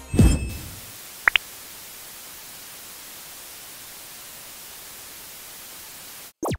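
Steady static hiss, like an old TV between channels, opening with a heavy low whoosh and two quick high blips about a second in, and ending with a short falling swoop before it cuts off.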